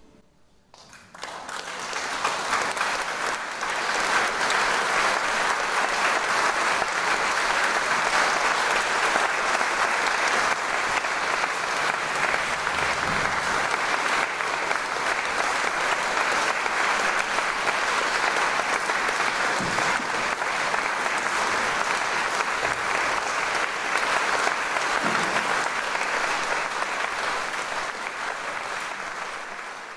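Audience applauding: the clapping starts about a second in, swells over the next few seconds, holds steady and begins to fade near the end.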